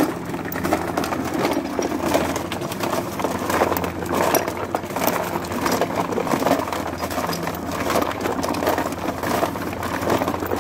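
Homemade trommel, a cement mixer driving a mesh sieve drum, running with a steady motor hum while stones and soil rattle and clink in the turning drum.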